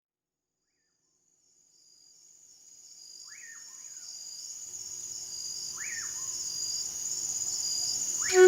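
Night-forest soundscape fading in from silence: a steady, high-pitched chorus of crickets or similar insects, with two short rising-and-falling calls and a low hum joining partway through. A loud flute note begins right at the end.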